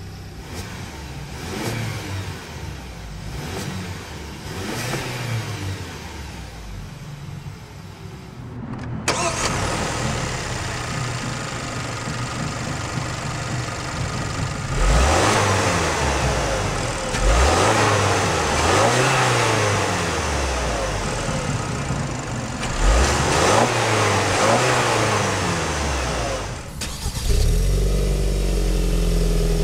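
2013 Hyundai Santa Fe Sport's 2.0-litre turbocharged GDI four-cylinder engine idling, then revved up and let fall back several times in quick blips, heard from the open engine bay. Near the end it idles steadily, heard at the dual exhaust tips.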